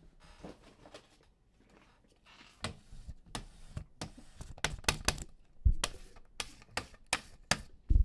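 Trading cards and their packaging being handled on a table: after a short quiet spell, a quick run of sharp clicks and taps, with two dull thumps, one midway and one at the end.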